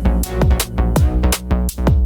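Background electronic music with a heavy bass and a steady beat of drum strikes.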